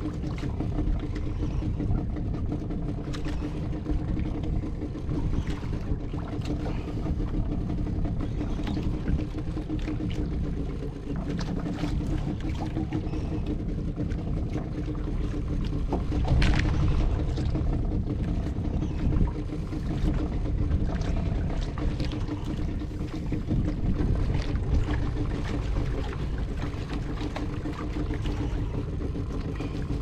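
Boat engine running at a steady hum, under a low rumble of wind and water, with a few scattered clicks.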